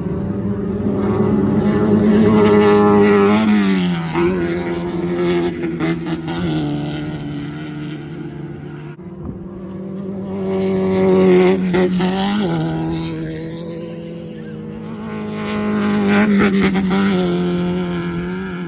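Class 1600 off-road race cars, air-cooled VW 1600 cc engines at high revs, passing by one after another. The engine sound swells three times, about 2.5, 11.5 and 16.5 seconds in, with the pitch dropping sharply after the first two passes.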